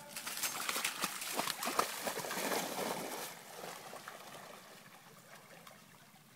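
A black retriever splashing into and swimming through shallow flooded-timber water. The splashing is loudest in the first three seconds and fades as the dog swims away.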